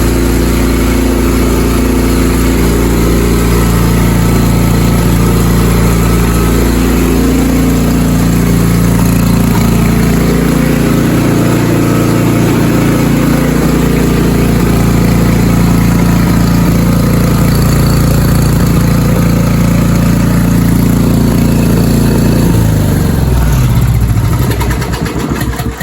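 Ariens Deluxe 30 snowblower's Briggs & Stratton Polar Force 1450 305cc single-cylinder engine running steadily off choke after a carburetor bowl cleaning and fresh fuel, running smoothly. Near the end it is switched off and winds down, its pitch falling as it stops.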